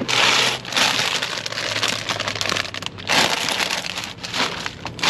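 Plastic food packaging crinkling and rustling in bursts as gloved hands rummage through a cardboard box of discarded groceries, over a faint steady low hum.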